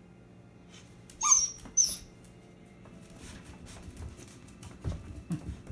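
Basset hound puppy giving two short, high-pitched yips about a second in, then its claws patter and scrabble on a tile floor, with a few soft thumps as it rolls about.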